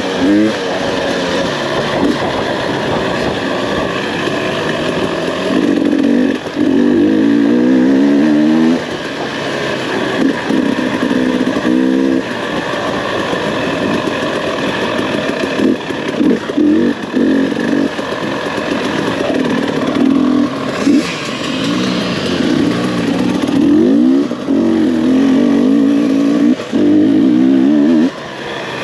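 GasGas two-stroke dirt bike engine revving up and down as the throttle is opened and closed again and again, its pitch rising in sweeps as it pulls.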